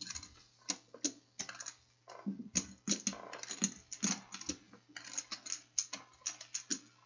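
Rapid, irregular small clicks and clacks, some in quick runs.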